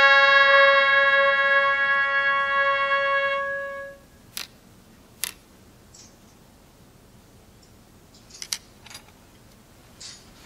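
A miniature brass horn held in tweezers and blown by mouth, sounding one long held note that stops about four seconds in. A few light, sharp clicks of small tools on a workbench follow.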